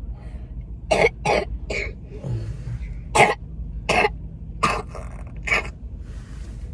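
A child coughing repeatedly: about seven short, separate coughs spread over several seconds.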